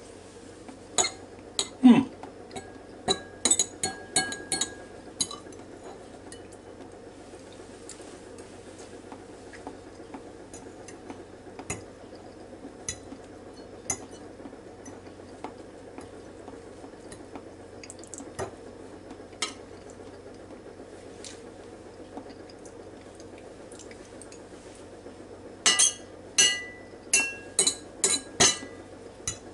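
Metal spoon clinking and scraping against a ceramic bowl while eggs are eaten from it. There is a run of quick clinks near the start, single clinks now and then, and another run of clinks near the end.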